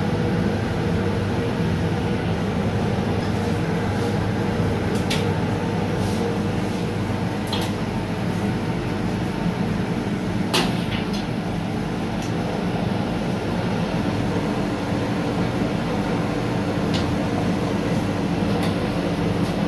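Electric charcoal-grill blower fan running steadily with a constant hum, forcing air into the burning charcoal to fan it into flame. A few scattered sharp pops from the coals.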